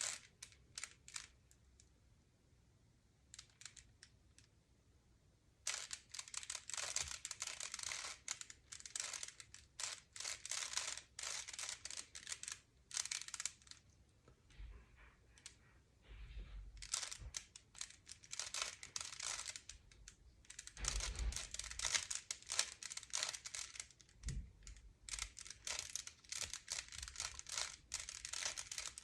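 Rubik's cube being turned by hand, its plastic layers clicking and rattling in quick runs of turns with short pauses. A few dull low thumps come in the second half.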